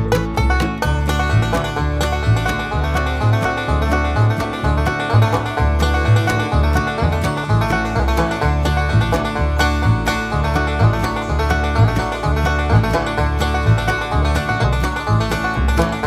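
Background music: upbeat banjo-led bluegrass/country with a steady plucked rhythm and bass.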